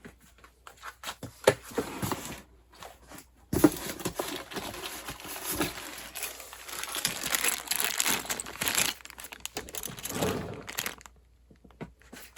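Packaging being handled while sewing-machine accessories are unwrapped: a few light clicks and handling noises, then, about three and a half seconds in, a sudden onset of continuous crinkling and rustling that dies away near the end.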